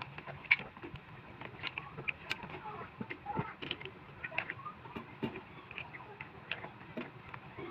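Kitchen tongs clicking and tapping against mussel shells, shrimp and the wok as a seafood boil of shrimp, corn and mussels in sauce is turned over, in irregular scattered light clicks.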